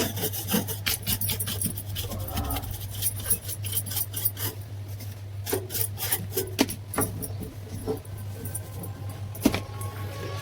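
Irregular scraping, rubbing and sharp clicks of table fan parts being handled and fitted, over a steady low electrical hum.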